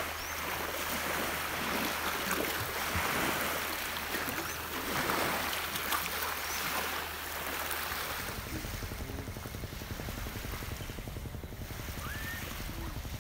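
Small waves washing onto a sandy beach, with wind blowing on the microphone, which turns into a low rumble from about eight seconds in.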